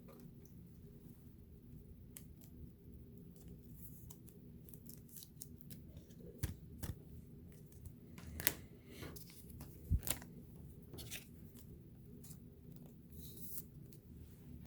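Trading-card pack wrappers being opened and cards handled: faint crinkling, rustling and scattered clicks, a few sharper crackles in the middle.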